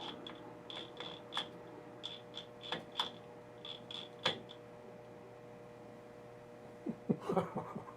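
Safe combination dial being turned by hand: irregular light metallic clicks and ticks, closely spaced for the first few seconds and then sparser, with a short cluster of knocks near the end.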